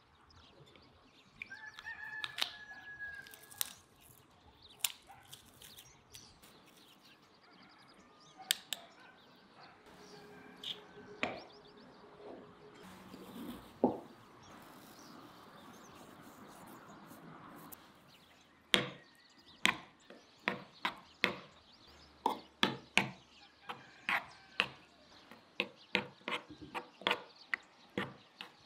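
Kitchen-utensil clicks and taps as garlic is squeezed through a metal garlic press, then a spoon stirring a thick cream sauce in a clay bowl, clacking against the bowl about twice a second in the second half. A rooster crows in the background.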